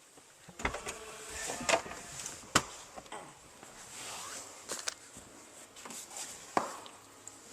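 Scattered clicks, knocks and scraping from hand tools and plastic trim being worked at a car's steering column, with a sharp click about two and a half seconds in. This is the work of removing the 7mm bolts that hold the lower column cover.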